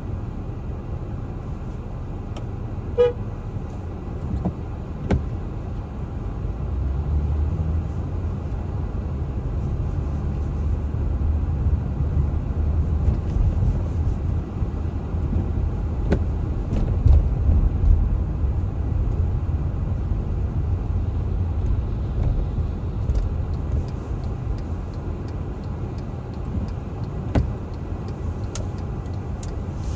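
Steady low rumble of a moving car's engine and tyres on the road, growing louder about seven seconds in. About three seconds in, a car horn gives one short toot.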